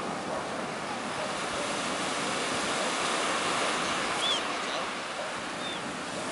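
Black Sea surf breaking and washing up a pebble beach, a steady rushing of water. Two brief faint high chirps are heard about four seconds in and again near the end.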